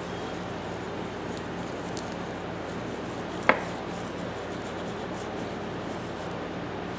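Fine 0000 steel wool rubbing over a small steel tap handle, buffing a coat of cold bluing: a steady rubbing, with one sharp click about halfway through.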